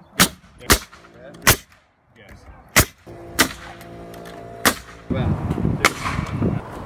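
Pneumatic coil nailer firing nails into wooden fence boards: about seven sharp shots, irregularly spaced a half second to a second and a half apart.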